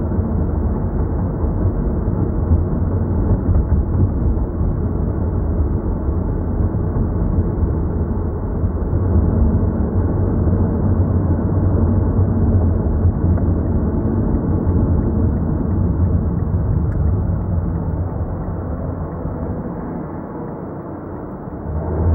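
Steady low rumble of a car driving, heard from inside the cabin: engine and tyre noise with no distinct events. It dips briefly near the end and then picks up again.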